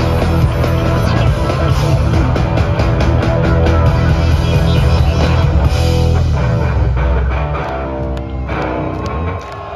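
Live rock band playing loud: electric-style guitar, heavy bass, drums and keyboards. A little past halfway the drums drop out and a held chord rings and fades, cutting off just before the end.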